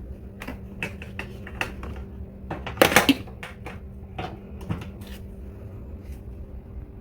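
Hard objects clicking and knocking as they are handled and set down, a dozen or so separate strikes with the loudest cluster about three seconds in, over a steady low hum.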